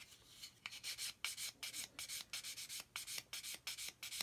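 Hard sanding stick rubbed back and forth over a plastic model hull, smoothing off the dried white surfacer on the seams. After a brief pause about half a second in, the quick even strokes run at about four or five a second.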